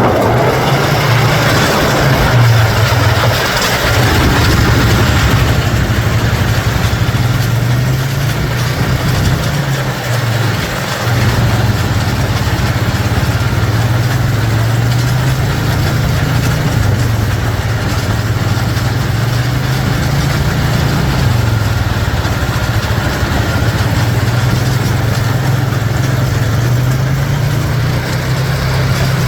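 Farm tractor's diesel engine running steadily as it pulls a round baler picking up hay, the engine note wavering slightly up and down.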